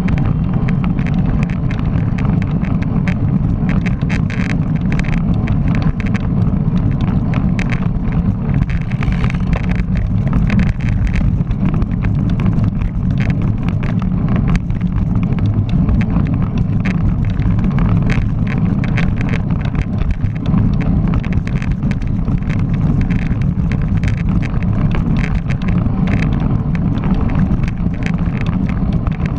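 Wind buffeting the microphone of a camera riding on a road bicycle at race speed, a steady rumbling rush, with road and tyre noise and scattered small clicks and rattles from the bike.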